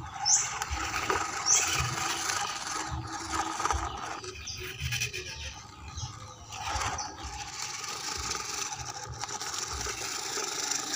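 Homemade RC crawler truck running over rocky gravel: its small electric motor and gearbox whirring while the tyres scrape and knock over the stones.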